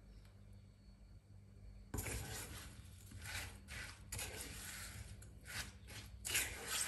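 Silicone spatula stirring diced strawberries and sugar in a small non-stick saucepan: a series of irregular scraping strokes starting about two seconds in, over a low steady hum.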